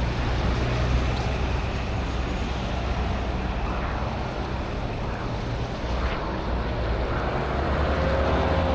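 Steady low rumble of street traffic mixed with wind on the microphone, with a faint pitched tone coming in near the end.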